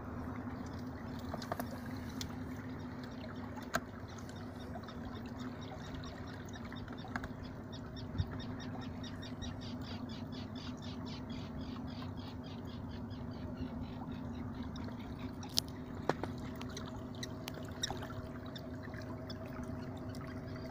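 Fisher 55 12-volt electric trolling motor running with a steady hum, with water trickling and lapping along an inflatable boat's hull. A rapid high pulsing chatter runs for several seconds in the middle.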